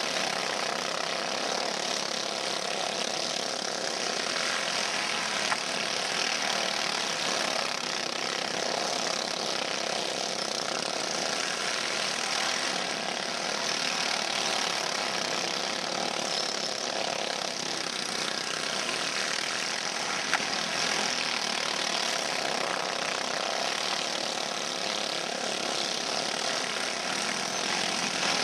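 A pack of small-engine go-karts running laps on a dirt track, their engines blending into a steady buzz that swells slightly as they pass. Two brief sharp clicks break through once each.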